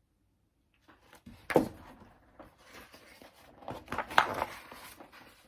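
Pages of a picture book being handled and turned: a soft rustle about one and a half seconds in and another around four seconds in, with faint paper shuffling between.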